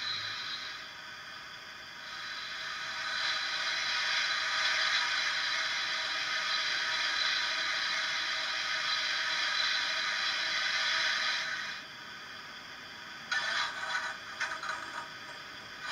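Sound-fitted Hornby model of an LMS Princess Royal class steam locomotive, standing still, playing a steady steam hiss through its small onboard speaker. Near the end the hiss drops away and gives way to a choppy, scraping clatter.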